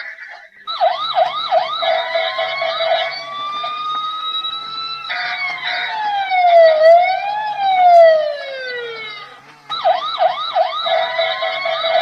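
Electronic siren sound effect from a toy driving-simulator: a fast warbling yelp of about four sweeps a second, then a slowly rising tone, then a long wail that falls, rises and falls again. The fast warble starts again near the end.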